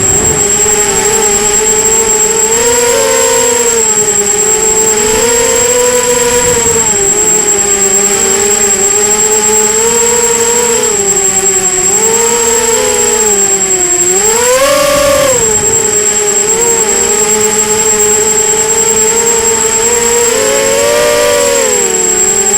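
Brushless motors and propellers of a 250-size FPV racing quadcopter whining in flight, the pitch rising and falling with the throttle and jumping up sharply about two-thirds of the way through. A thin steady high-pitched tone runs underneath.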